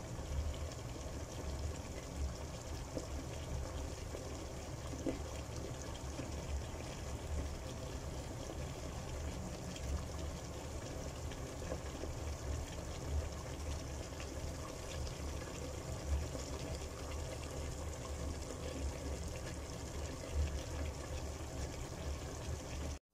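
Chicken wing tips simmering in a thick sauce: steady quiet bubbling with small scattered pops over a low hum.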